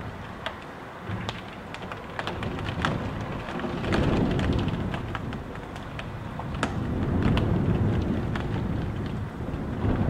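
Gusting wind and pouring rain heard from inside a house: a steady rain hiss scattered with sharp drop taps, and two gusts swelling with a low rush about four and seven seconds in.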